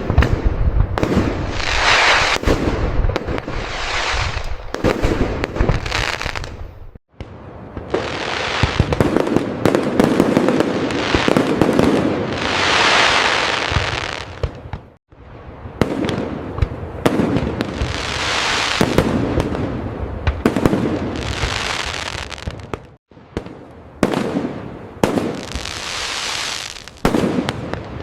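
Aerial fireworks bursting in quick succession: sharp booms, each trailed by a swelling crackle that fades over a second or two. Three brief sudden gaps break the sequence, about eight seconds apart.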